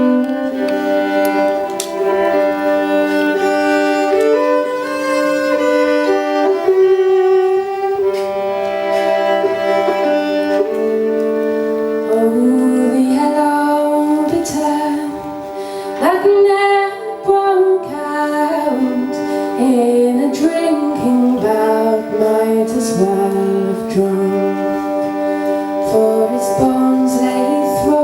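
Live folk music: a slow melody over long held notes.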